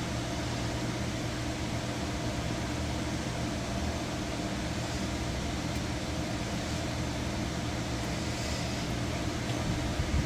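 A steady mechanical hum with a low drone and an even hiss underneath, unchanging throughout.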